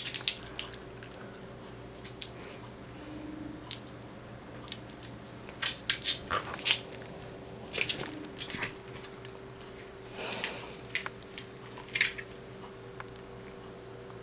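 A cat biting and chewing on a play string, heard as small irregular clicks and crackles that come in a few short clusters.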